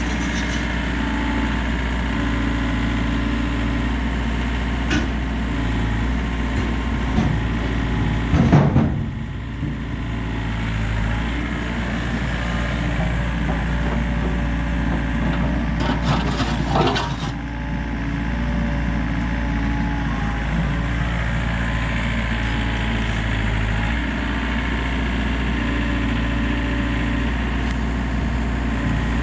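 Komatsu excavator's diesel engine running steadily, with a loud clatter of broken concrete being handled about eight and a half seconds in and more clattering around sixteen to seventeen seconds.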